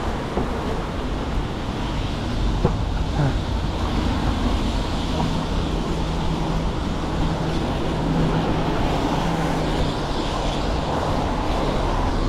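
Road traffic going by, with a steady engine hum from a passing vehicle for several seconds in the middle, over a constant low rumble.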